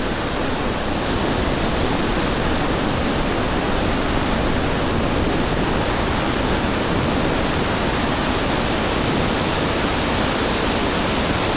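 Loud, steady rush of tornado winds over the microphone, with no break in it.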